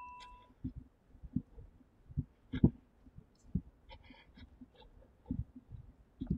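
Faint, irregular soft thumps of footsteps and handheld-camera handling while walking, with a few light clicks.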